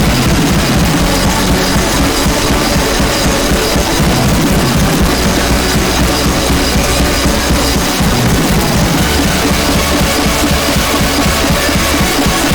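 Loud, dense music with fast, heavy drumming and a thick wall of noisy distortion.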